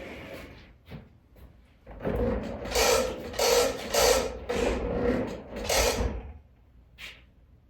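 Handling noise as the launch monitor's power cord is dealt with and plugged in: a run of five or six loud rubbing, clattering strokes from about two seconds in to about six seconds, with a few lighter clicks afterwards.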